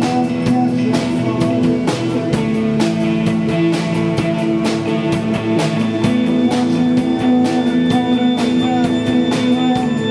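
Post-punk/shoegaze band playing live: electric guitars holding sustained chords over bass guitar and a drum kit keeping a steady beat.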